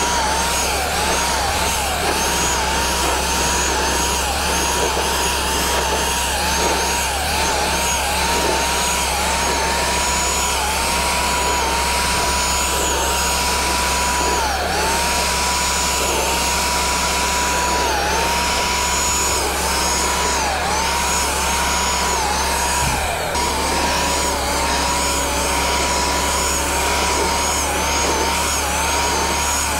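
Small electric paint sprayer's motor whining steadily, its pitch dipping and recovering again and again at an uneven pace. A second, lower hum joins about three-quarters of the way through.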